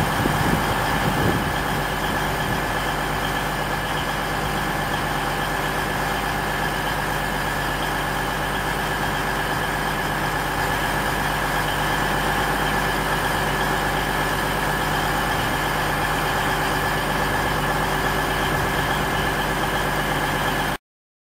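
Diesel train engines running steadily at idle, a constant low hum with a held higher tone over it. The sound cuts off suddenly near the end.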